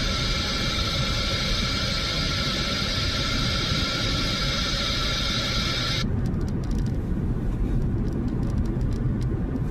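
Road noise from a car being driven, heard from inside: a steady low rumble, with a steady high hiss over it that cuts off abruptly about six seconds in.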